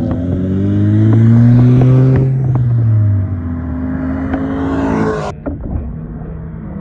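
Cars' engines accelerating away one after another, each revving up with rising pitch; the sound drops suddenly a little after five seconds in.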